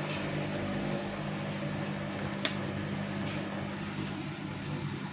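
Vestel CM8710 washing machine running with a steady low motor hum and one sharp click about two and a half seconds in.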